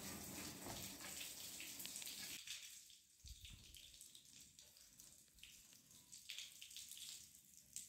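Water from a garden hose spraying against a metal room heater, a steady rushing hiss. About two and a half seconds in it drops to a quieter trickle of hose water running and splashing onto a tiled floor.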